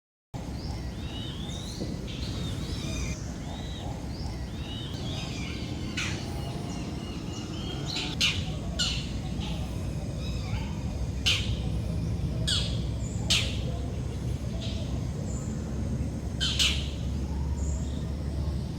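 Birds calling: a run of quick twittering chirps in the first few seconds, then short, sharp squawks every second or two, over a steady low rumble.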